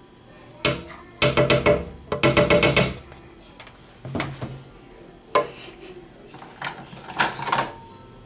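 Spoon scraping hard ice cream in a carton: two bursts of quick, juddering, chattering strokes. Then a few single knocks and taps as the scoop goes into a plastic blender jar.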